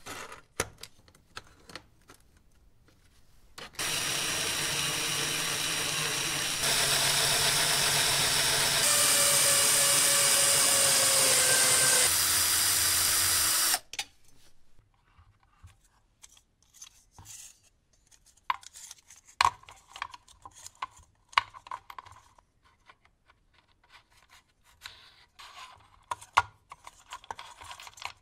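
Electric drill boring a hole through a square aluminium bar: about ten seconds of steady whine that gets louder in a few abrupt steps, one tone in it sagging slightly in pitch as the bit bites, then cutting off suddenly. Before and after, light clicks and taps of aluminium parts being handled.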